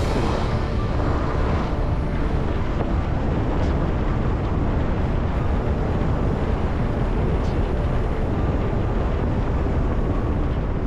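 Steady wind rumble on the action camera's microphone while skiing down a groomed run, with skis hissing over the snow.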